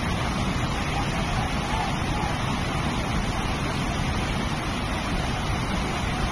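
A flash-flooded mountain stream rushing over boulders: the steady, heavy noise of white water.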